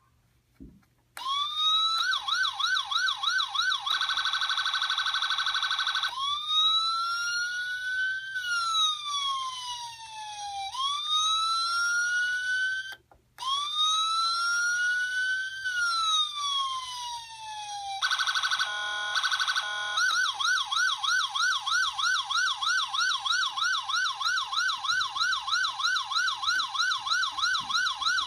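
Electronic siren of a diecast Ford Crown Victoria police car model, switched through its tones: a fast yelp starting about a second in, a steady rapid warble, then slow rising and falling wails with a short break near the middle, a brief choppy tone, and the fast yelp again to the end.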